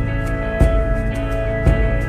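Instrumental background music: sustained chords with a soft beat about once a second.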